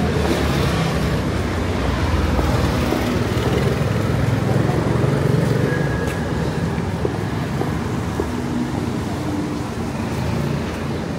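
City street traffic: vehicles passing with a steady low engine rumble and road noise, easing off a little near the end.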